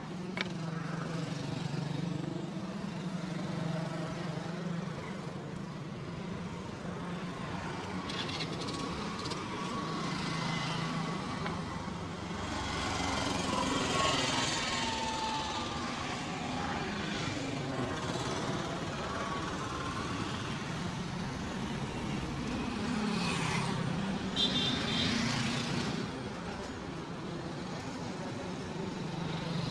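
Street traffic: vehicle engines running with a steady low hum and road noise, with a couple of sharp clicks, one just after the start and one near the end.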